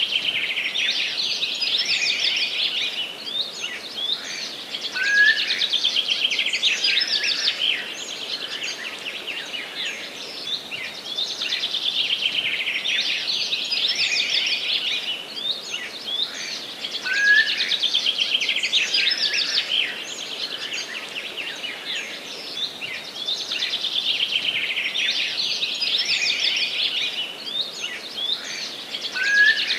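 Forest songbirds singing: a dense, continuous run of fast high chirps and trills, with a short lower note coming back about every twelve seconds.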